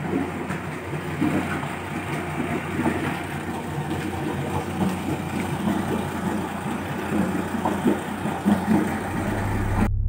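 An engine idling steadily.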